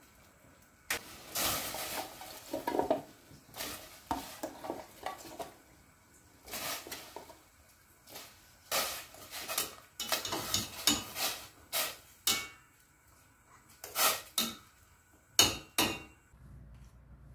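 Stainless steel tongs clinking and knocking against the rim and sides of a stainless steel saucepan as food is lifted out and vegetables are dropped into the water, in irregular sharp clanks.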